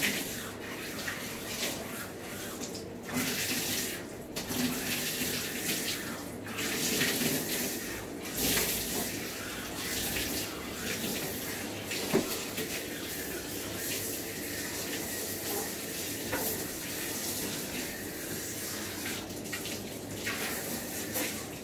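Water spraying from a handheld bathing sprayer onto a wet dog's coat in a grooming tub, rinsing out shampoo. A continuous hiss of spray with a few brief dips.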